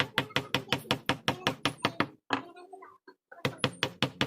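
Rapid, even tapping of a mallet on a carving chisel cutting into hardwood, about six or seven blows a second. The tapping stops for about a second just past the middle, then starts again.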